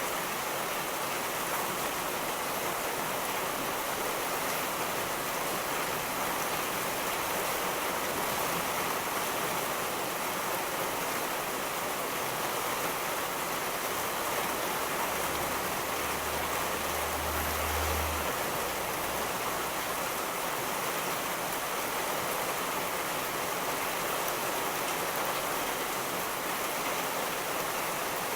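Steady heavy rainfall, an even hiss. About halfway through, a low rumble of thunder swells for a few seconds and fades.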